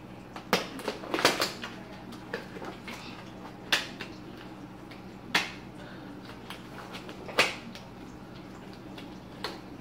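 Disposable plastic food-prep gloves being pulled and worked on the hands: a handful of sharp crinkles and snaps, spaced a second or two apart, over a faint steady hum.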